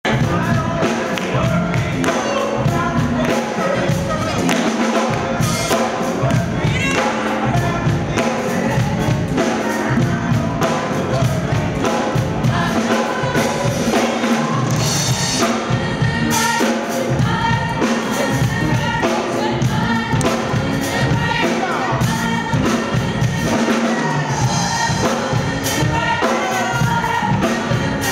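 Live gospel music: voices singing together over a band with electric guitar and drum kit, with a steady driving beat.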